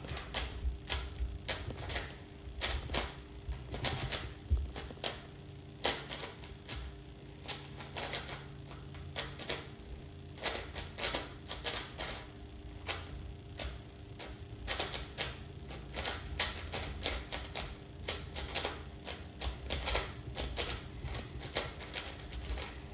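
5x5 speed cube being turned quickly in a solve: a rapid, irregular clacking of plastic layers, several clicks a second with short pauses, and a click as the inner and outer layers snap into place.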